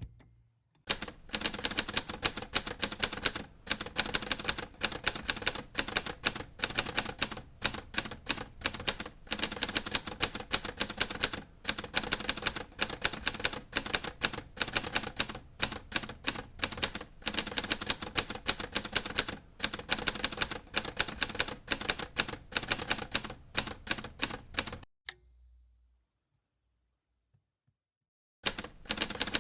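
Typewriter keys striking in a steady run of rapid keystrokes. Near the end the typing stops and the typewriter's bell rings once and fades out. Typing starts again just before the end.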